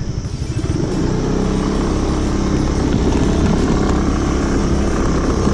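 Aprilia SR 150 scooter's single-cylinder engine running, getting louder about a second in and then holding steady.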